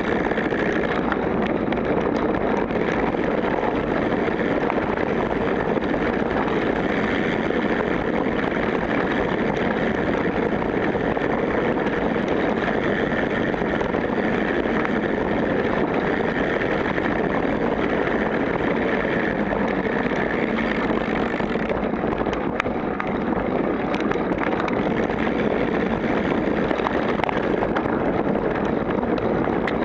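Steady rushing of wind over the camera microphone mixed with tyre and frame rattle as a bike rolls down a dirt singletrack.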